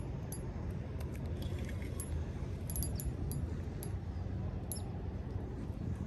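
Scattered light metallic clicks and clinks from a spinning reel being handled, over a steady low rumble of wind on the microphone.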